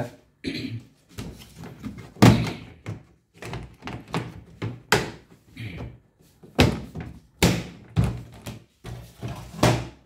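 Hollow plastic knocks and thuds, about half a dozen loud ones spaced irregularly among lighter clatter, as the plastic inner cover and lid of an LG twin-tub washing machine's spin-dryer compartment are handled.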